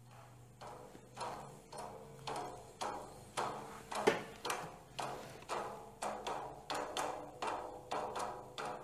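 A steady beat of hollow, woody percussive knocks, about two a second, growing firmer about a second in: the rhythm that opens the accompaniment for a sung syair.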